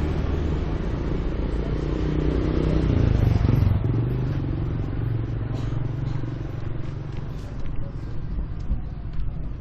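A motor vehicle passing close by on the road, its engine hum swelling to its loudest about three to four seconds in, then fading.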